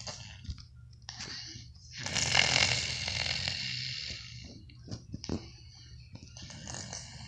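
A sleeping person snoring: rough, rasping breaths, with one loud, long snore about two seconds in that trails off over the next two seconds.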